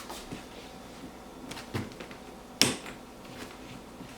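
A few light knocks and clicks of objects being handled, the sharpest about two and a half seconds in.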